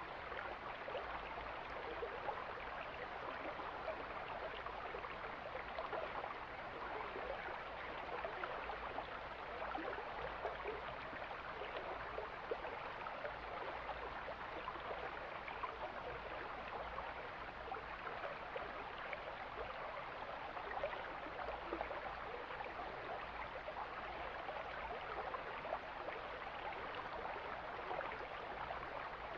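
Mountain stream flowing: a steady rush of water with many small splashes.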